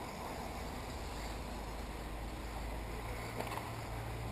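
Steady wind rumble on the microphone over the faint running of 1/10-scale RC buggies on the dirt track.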